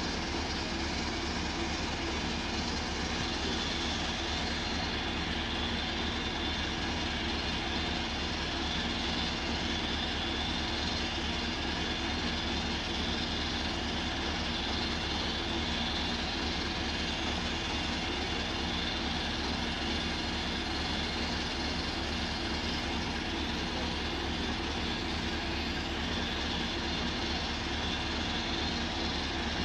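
Truck-mounted water-well drilling rig running steadily, its engine powering the rotary drill while it bores down into sand.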